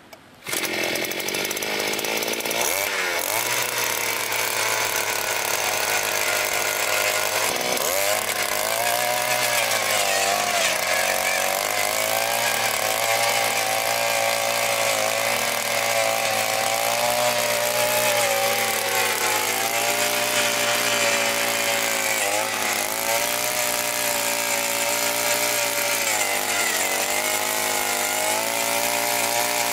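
Takyo TK-2P earth auger's 52 cc single-cylinder two-stroke engine running hard as its 20 cm bit bores into very hard, stony soil. It cuts in sharply just after the start, and from about eight seconds in its pitch sags and recovers again and again as the bit bites and frees.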